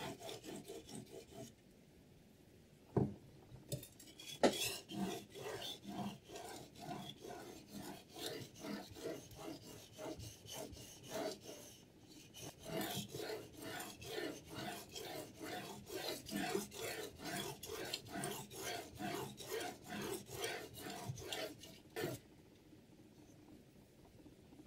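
Whetstone rasping back and forth along a steel knife blade on a guided sharpener, in a steady rhythm of about two strokes a second. The strokes pause for a couple of seconds near the start, broken by a sharp knock, then run on until they stop with another knock near the end.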